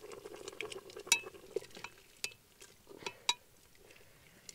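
A metal ladle stirring stew in a metal couscous pot, clinking sharply against the pot with a brief metallic ring several times.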